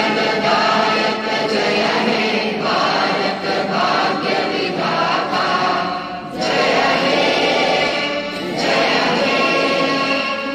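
A choir of voices singing together in long held phrases, with short breaks between phrases about six and eight seconds in.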